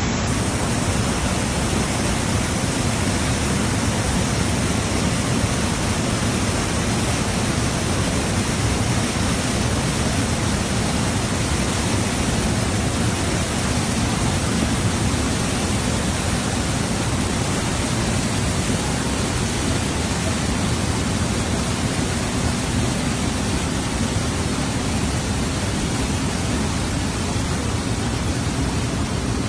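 Manavgat waterfall: river water pouring over a wide, low fall, a steady rushing noise that never lets up.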